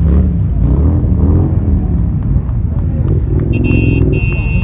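Several motorcycle engines rumbling as a group of motorbikes rides slowly past, with crowd voices mixed in. About three and a half seconds in, a vehicle horn sounds in a steady held blast with a brief break.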